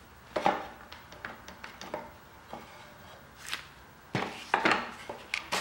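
Clamps and a pine drawer frame being handled on a workbench: scattered light clicks and taps, with louder knocks about half a second in and a cluster of them from about four seconds in.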